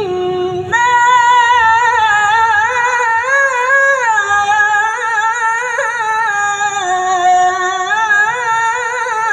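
A woman reciting the Qur'an in the melodic tilawah style into a microphone. After a short opening note, she holds one long ornamented line, its pitch wavering up and down in melismatic turns.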